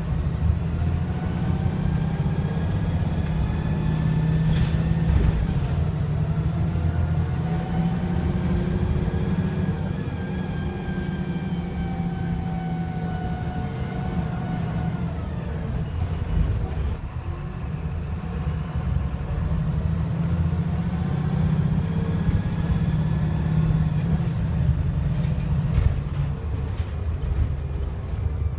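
VDL SB200 bus's diesel engine and Voith automatic gearbox accelerating hard, with a heavy low rumble and a whine that rises in pitch, a gear change about five seconds in, then easing off and falling in pitch before pulling up through the revs again in the second half. The engine is misfiring and sounds very unhealthy.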